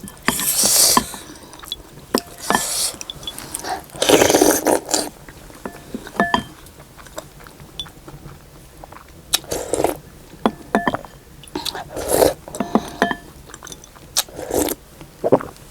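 Close-miked eating of soup momo: bites and chewing in irregular bursts, with a spoon scraping and lightly clinking against the bowl a few times.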